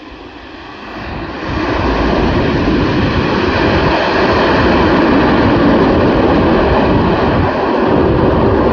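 Antonov cargo aircraft's engines running close by as it arrives to land. The engine noise swells sharply about a second and a half in, then holds loud and steady, with a few steady whining tones over the roar.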